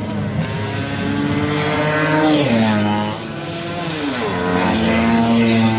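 Race-tuned Vespa scooter engines screaming at high revs; the pitch climbs, then drops sharply twice, about two and a half seconds and four and a half seconds in.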